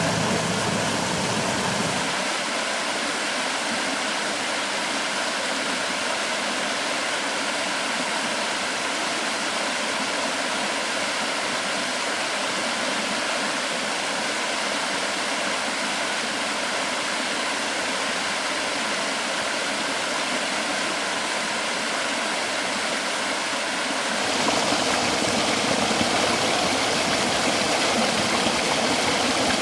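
Mountain valley stream water rushing steadily over rocks. About two seconds in the low rumble drops away, and near the end the rush becomes louder and fuller.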